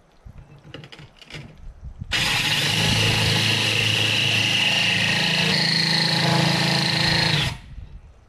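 Cordless drill spinning a water-cooled diamond hole saw that grinds into the aquarium's glass bottom. It starts abruptly about two seconds in, runs steadily with a whine for about five seconds, shifts up in pitch partway through, then stops.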